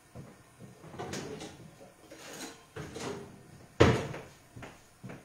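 Kitchen handling noises: several light knocks and rustles, with one sharp knock, the loudest, about four seconds in.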